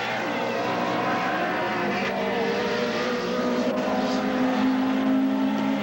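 Several race car engines running hard, their pitches shifting as the cars go by. One engine holds a steady note through the second half.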